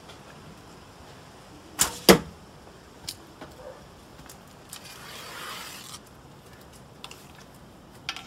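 An arrow shot from a bow: a sharp snap of the string, then about a third of a second later the louder thud of the arrow striking the target. Afterwards come small clicks and a brief rustle as arrows are handled.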